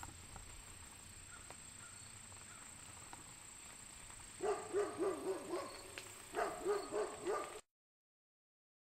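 Maremma sheepdog barking in two quick runs of repeated barks, starting about halfway in after a few seconds of faint background, then the sound cuts off abruptly.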